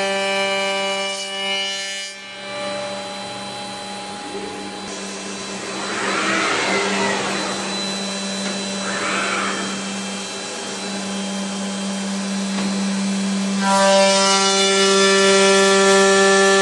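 A Routech OIKOS CNC beam-processing centre machining a timber beam, with a steady machine hum and two passes of cutting noise that swell and fade, about six and nine seconds in. Background music plays before the machine sound and comes back near the end.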